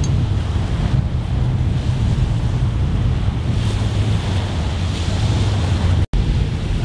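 Wind buffeting the microphone over open water with waves washing, a steady low rumble underneath. The sound drops out for an instant about six seconds in.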